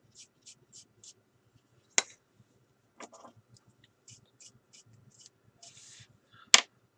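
Light, scratchy strokes of a tool and brush across a plastic scale model car body, clearing excess baking powder off a seam filled with CA glue, about three strokes a second. Two sharp clicks break in, one about two seconds in and a louder one near the end.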